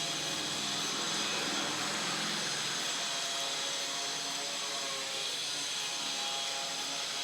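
Sabudana vadas deep-frying in hot oil: a steady sizzle.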